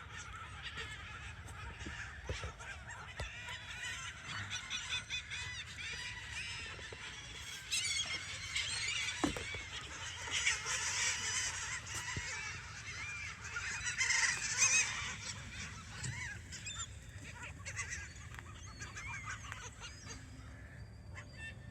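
A flock of birds calling, with many short overlapping calls that grow busier and louder in bursts through the middle.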